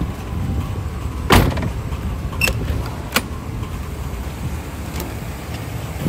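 Chevrolet Astro's 4.3-litre V6 idling steadily with the air conditioning switched off, without the rattle that appears with the AC on and that the owner suspects comes from the fan belt or tensioner. A few sharp knocks and clicks of handling, the loudest about a second in.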